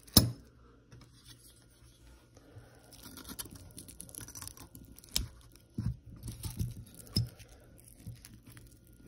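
Clear plastic wrap crinkling and tearing as it is worked off a knife blade, with several knocks of the blade and hand along the way. A sharp knock just after the start is the loudest sound.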